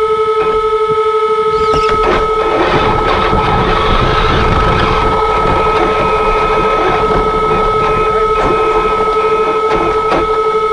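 Traxxas X-Maxx RC truck's brushless electric drive: a steady high whine from the motor and speed controller. From about two seconds in until near the end, a rougher drive and tyre noise swells as the truck drives backward over packed snow, with a few sharp clicks.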